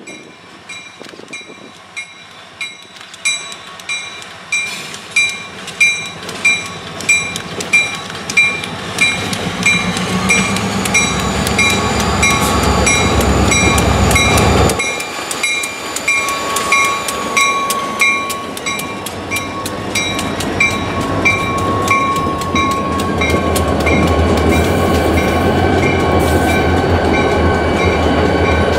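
Diesel freight locomotives of a New England Central train rolling past slowly, their engines rumbling louder as the lead units come alongside about halfway through, with wheels clacking on the rails. A metallic ringing repeats about twice a second for much of the pass.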